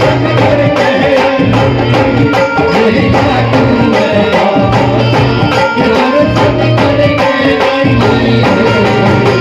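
Live Haryanvi devotional bhajan, loud through a PA: a male voice singing over a steady hand-drum beat and instrumental accompaniment.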